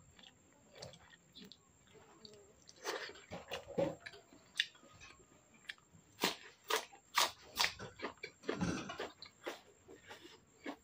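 Eating sounds: slurping and chewing of instant noodles, then loud crisp crunches as raw green vegetable stalks are bitten and chewed, several sharp crunches a little past the middle.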